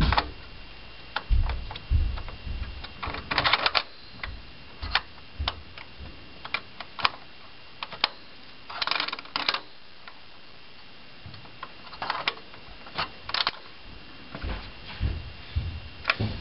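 Hands working a Xeon processor and its heatsink into place on a computer motherboard: irregular small clicks and taps with brief scraping rattles of metal and plastic parts, as a part that won't seat is worked in.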